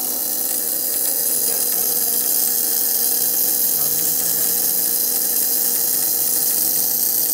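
Shorted control board in an old ICP gas pack furnace sizzling steadily as it arcs, a loud even hiss with a faint buzz beneath it. The sound is the sign of the board shorting out and burning.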